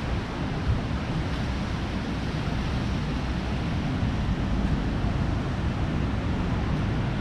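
Ocean surf on a beach, a steady rush of noise, with wind on the microphone.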